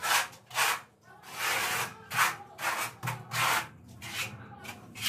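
Notched trowel scraping and combing tile adhesive across a wall in a run of short strokes, one of them longer about a second and a half in.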